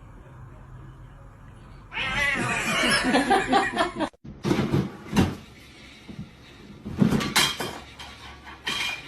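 A cat crying out loudly with a wavering pitch for about two seconds, cut off suddenly. After it come several short knocks.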